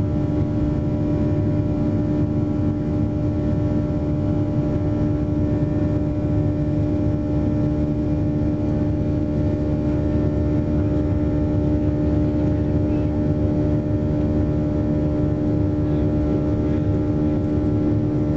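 Cabin noise of a Boeing 737-800 climbing out just after takeoff, heard from a window seat over the wing: its CFM56-7B turbofan engines running steadily at climb power, a constant rushing drone with a strong steady hum.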